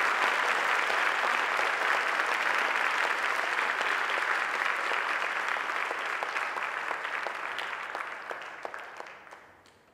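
Theatre audience applauding, dying away over the last few seconds into a few scattered claps.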